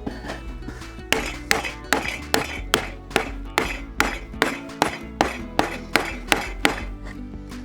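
Rubber mallet tapping the glued joints of a flat-pack wooden beehive super together. There are steady sharp knocks, about two and a half a second, starting about a second in, over background music.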